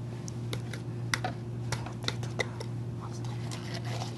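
Light, irregular clicks and taps of baby spinach and its container being handled and added to a blender jar, over a steady low hum.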